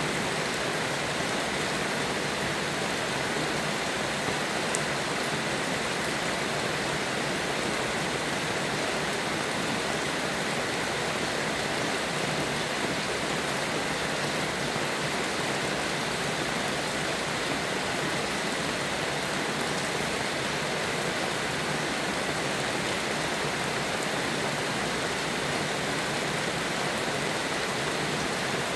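Steady rain, an even hiss that does not let up, with no thunder.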